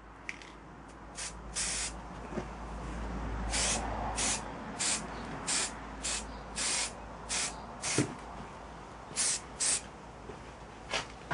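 Aerosol spray-paint can spraying in about a dozen short hissing bursts, one every half second or so.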